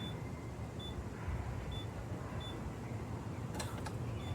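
Keypad of a Lippert keyless RV door lock beeping at each button press as a code is entered: five short high beeps, roughly a second apart. A couple of sharp clicks come near the end.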